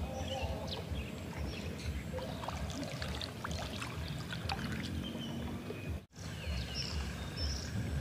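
Wind buffeting the microphone beside open water, with a faint wash of lapping water and scattered small ticks and chirps. The sound cuts out briefly about six seconds in.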